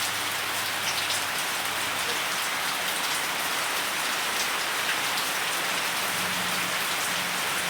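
Steady rain falling, an even hiss with a few individual drops ticking now and then.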